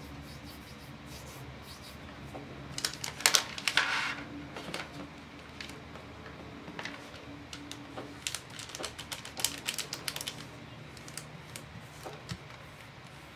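Thin clear plastic sheet crinkling and crackling as hands fold it and press it flat, in irregular bursts of sharp clicks, loudest about three seconds in and again a little past the middle.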